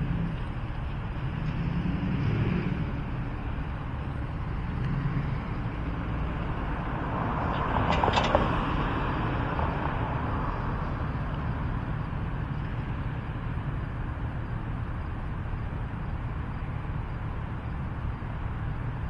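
Street traffic: cars passing on the road over a steady low rumble, with the loudest pass swelling up and fading away about eight seconds in.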